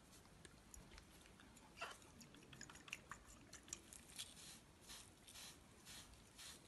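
Faint rubbing and rustling as a gloved hand wipes skin with an alcohol-soaked cotton swab, with scattered small clicks and crinkles.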